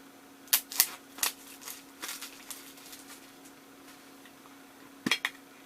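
Sharp plastic clicks and crackles as a Funko Soda collectible can is handled and opened. There are several in the first second and a half, then fainter ticks, and a quick double click about five seconds in.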